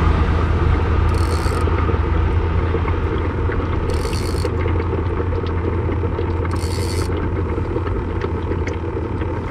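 Steady low hum of a battery-powered bubbler aerating a minnow bucket, with road traffic noise slowly easing off.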